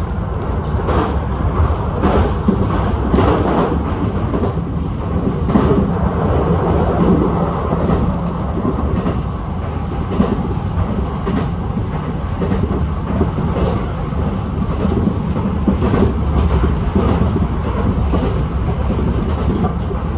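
Kintetsu express train running along the track, heard from the front of the car: a steady rumble of wheels on the rails with a clickety-clack of rail joints, the clicks more frequent in the first few seconds.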